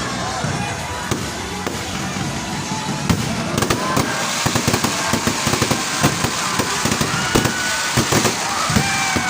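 Fireworks display: a dense, continuous run of bangs and crackling pops, growing busier about four seconds in.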